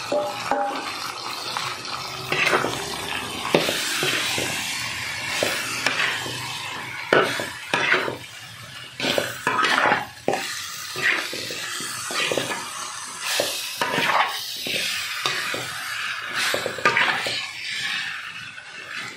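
A metal spatula scraping and stirring in a metal wok, with irregular clinks and scrapes over a steady sizzle, as beef-skin kikil and bitter melon are stir-fried.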